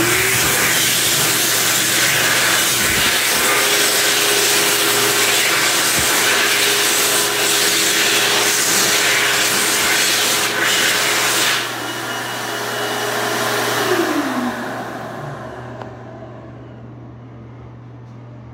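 2021 World Dryer SMARTdri Plus high-speed hand dryer running at full blast, a loud rush of air over a steady motor whine. About twelve seconds in the airflow drops, and two seconds later the motor winds down with a falling whine and stops.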